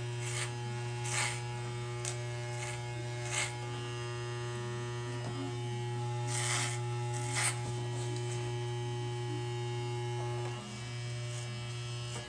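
Electric hair clippers buzzing steadily, cutting short hair on upward strokes, with several short bursts of cutting noise as the blades pass through the hair. The buzz dips briefly a little before the end.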